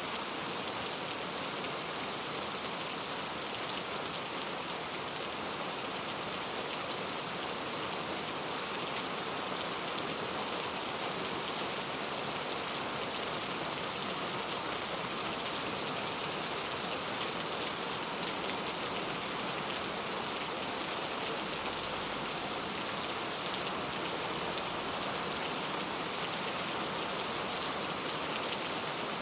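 Heavy rain falling steadily, an even hiss of drops striking surfaces.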